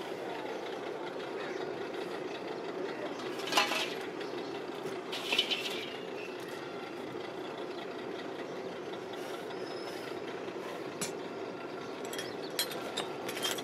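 Steady drone of a melting furnace's forced-air blower and flame, with a few sharp metal clinks from the ladle and tools, one about three and a half seconds in, another around five and a half, and several light clicks near the end.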